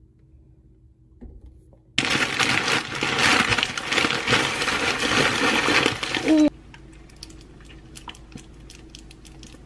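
Cereal shaken from a crinkling foil bag into a wooden bowl. There is a loud rustle and rattle of pieces for about four seconds, starting about two seconds in and stopping suddenly. After that come quieter small clicks and taps as milk is poured in.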